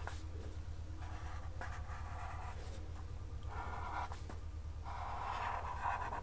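Black pen tip scratching across paper in a few long strokes with short pauses, tracing a curved outline; the longest stroke starts about five seconds in. A steady low hum runs underneath.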